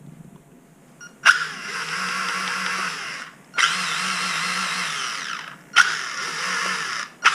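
HSP 94128 RC car's electric drive motor whining in three throttle bursts of about two seconds each, each starting with a sharp click. The motor hums but the car doesn't drive: the worn spur gear's teeth no longer mesh firmly with the motor pinion, so the driveshaft only twitches and stops.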